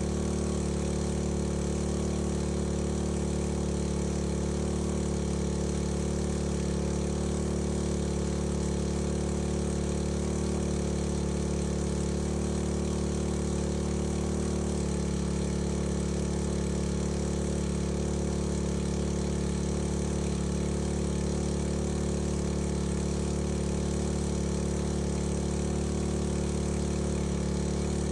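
Small petrol engine of a portable fire-fighting pump running steadily at constant speed to drive a fire hose, its pitch shifting slightly about halfway through.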